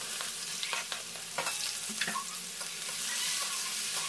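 Sliced onions frying in hot oil in a metal kadai: a steady sizzle, with a few sharp scrapes and clinks of the knife and spatula against the pan as the onions are pushed in and stirred.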